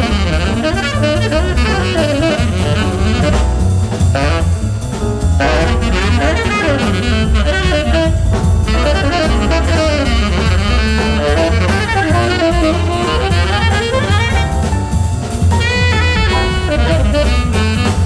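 Jazz quartet playing live: a tenor saxophone runs quickly up and down over piano, double bass and drum kit.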